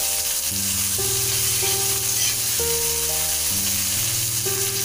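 Chopped onions sizzling in hot oil in a wok as a spatula stirs them, frying toward reddish-brown. Background music with sustained notes plays underneath.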